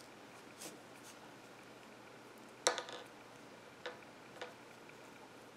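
Faint handling of a metal tapestry needle and yarn as a loose end is woven through crocheted fabric, with a few light clicks, the loudest about two and a half seconds in.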